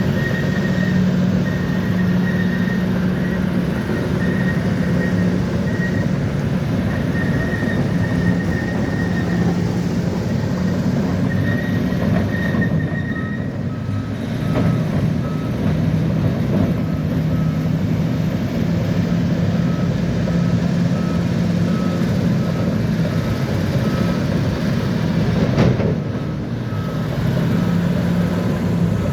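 Bulldozer diesel engine running under work, with the tracks clattering and a reversing alarm beeping steadily. About halfway through, the alarm's pitch drops to a lower beep.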